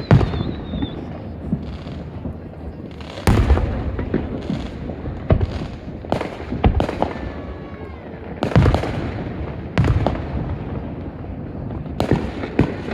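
Fireworks going off: a run of sharp bangs and deep booms with rolling echoes, the heaviest about three, eight and a half, ten and twelve seconds in, with smaller pops and crackles between.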